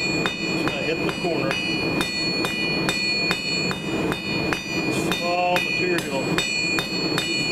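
Hand hammer striking hot 3/8-inch square steel stock on an anvil at about three blows a second while forging out its tapered end; the anvil rings loudly and steadily between the blows.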